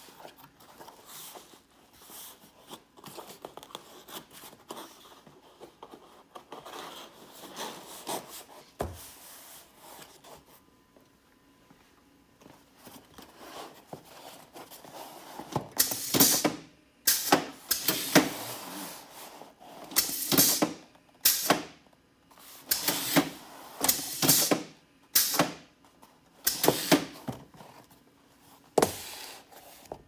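A corrugated cardboard box being handled, with quiet rustling and knocks as its flaps are folded. From about halfway there is a series of loud, short rasping bursts as the box is worked at a taping machine and closed with tape.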